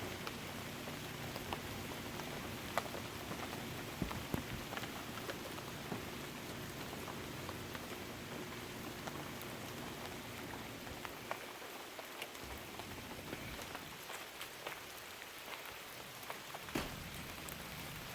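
Campfire crackling, with irregular sharp pops and snaps over a steady hiss. A low steady hum underneath fades out about twelve seconds in.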